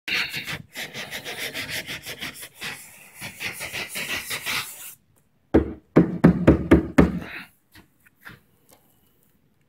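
Hand sanding of body filler on a car's rear quarter panel: quick rhythmic abrasive strokes, about three or four a second, stopping about five seconds in. After a short pause comes a cluster of louder knocks, then a few faint clicks.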